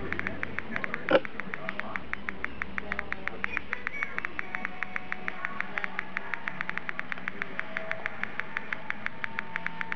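iPod Touch speaker giving out an even, rapid crackling static of small pops, about six a second, with one louder pop about a second in. It is a fault: this crackle is the only sound the broken iPod makes in place of its normal audio.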